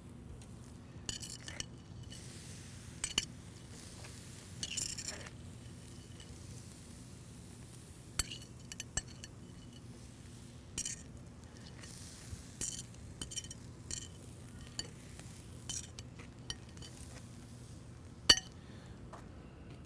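Metal tongs clicking and clinking against a plate and the wire grate of a charcoal grill as split spot prawns are laid on it: scattered sharp clicks, the loudest a single clack near the end.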